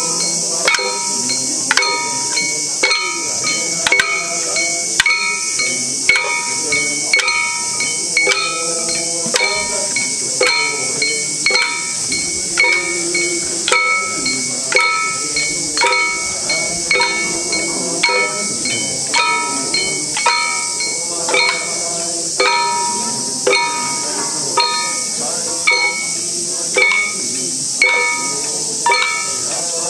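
Hand-held metal gongs struck in a steady, even beat, each stroke ringing briefly, keeping time for a Buddhist nenbutsu dance, over a continuous high-pitched hiss.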